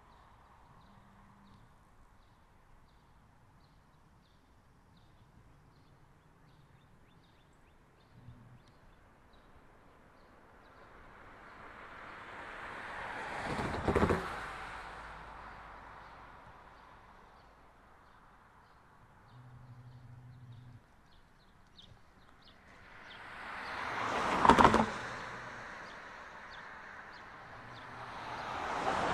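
Cars passing on a nearby road, one after another: each swells up over a few seconds, peaks with a brief sharp knock and fades, about halfway through, two-thirds through and again at the end.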